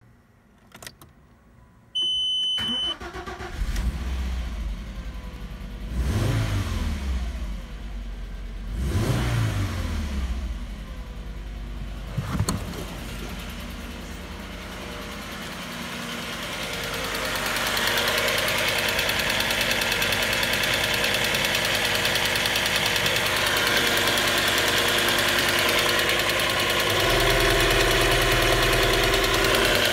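VW Passat B5's 2.3-litre VR5 petrol engine (code AGZ) started with a short dashboard chime, revved twice and blipped once, then idling steadily. Near the end the oil filler cap is off and the idle gets louder and fuller.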